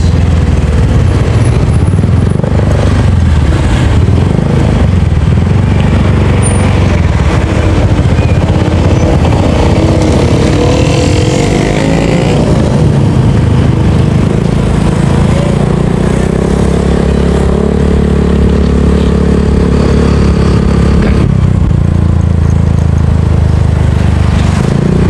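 Motorcycle engine running while being ridden along a road, loud and close, with a rushing noise over it. In the second half the engine holds a steady note for several seconds, then eases off.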